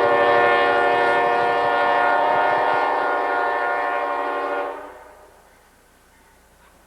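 Diesel locomotive air horn held in one long blast, several tones sounding together as a chord, that cuts off about five seconds in, leaving faint background noise.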